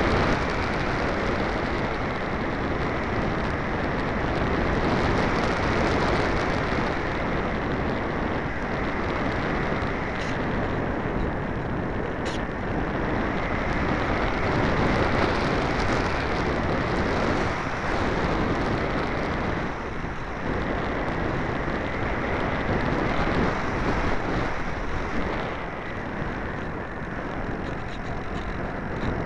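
Steady rushing wind noise from air streaming over the microphone of a camera carried on an RC glider in flight. It eases off a little near the end as the glider drops down to just above the sand.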